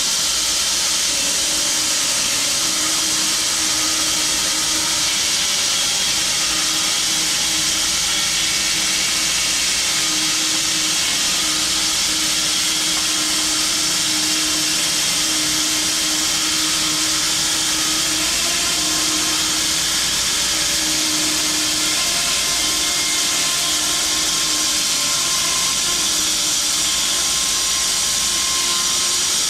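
Home-built 6 ft wide bandsaw mill sawing through a log: a steady loud hiss of the blade in the wood, with a wavering hum underneath.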